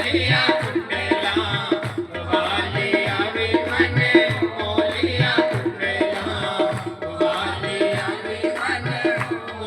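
Devotional bhajan music: a quick, steady hand-drum beat under a held melody line.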